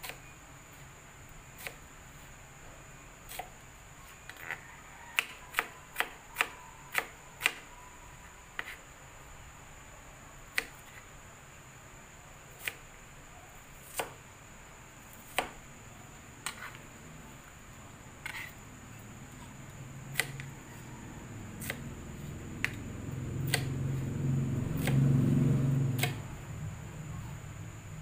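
Kitchen knife chopping an onion on a plastic cutting board: sharp irregular taps, a quick run of them a few seconds in, then spaced out. A low rumble swells near the end and is the loudest sound.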